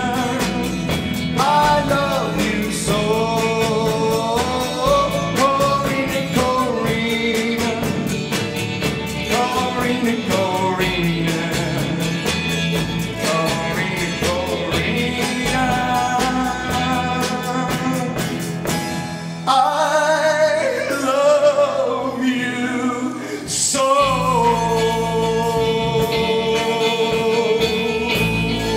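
Live band song: a man singing, accompanied by acoustic guitar, electric guitar and drums. The song ends on a long held sung note.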